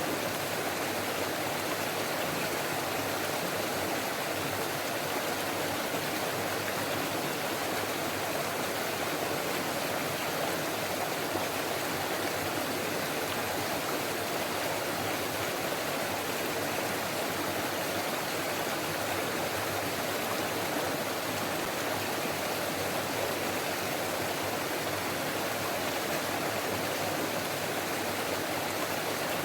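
Forest stream babbling steadily, a constant rush of flowing water over rocks.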